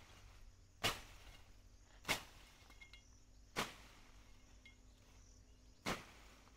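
A hand hoe chopping into the soil, four sharp strikes one to two seconds apart.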